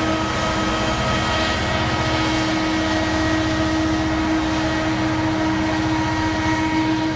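Diesel-electric locomotive working at high throttle: a steady, loud engine beat with a constant whine held over it.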